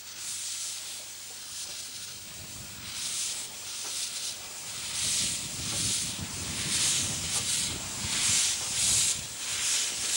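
Half-size replica Garratt K-1 steam locomotive pulling away, its cylinders and open drain cocks giving rhythmic hissing chuffs of steam, about one to two a second and growing louder, over a low rumble.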